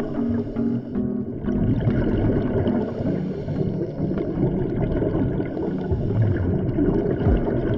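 Muffled water noise with a low boat-engine hum that comes and goes.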